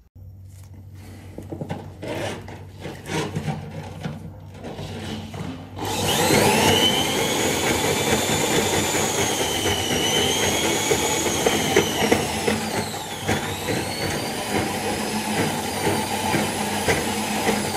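Handheld electric drum drain snake (RIDGID K-45) spinning its cable down a blocked shower drain. After some clicking and clattering it starts about six seconds in and runs loudly with a motor whine that sags in pitch twice.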